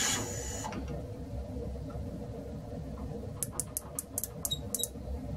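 A loud cutting or running noise stops under a second in and leaves a low steady hum. Near the middle comes a quick run of about eight light clicks: an outside micrometer's ratchet thimble clicking as it closes on the freshly turned diameter to take a measurement.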